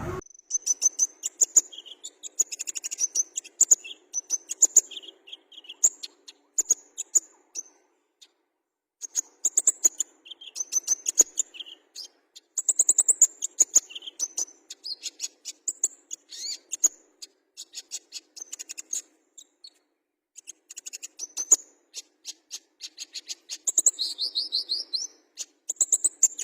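A kolibri ninja (konin) singing: rapid bursts of high, sharp chirps and trills in phrases broken by short pauses.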